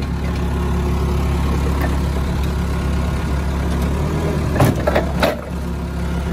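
Propane forklift engine idling steadily, with a few sharp clanks about three quarters of the way through.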